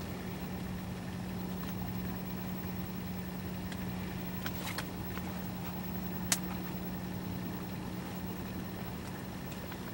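A steady low mechanical hum, like a small motor or engine running, with a few faint clicks about halfway through.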